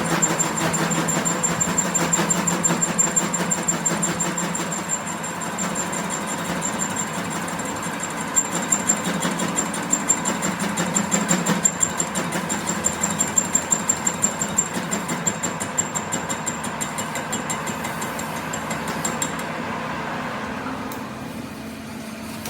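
A machine running steadily with a rapid, even knocking and a high whine, with sharper strikes a few times a second through the middle.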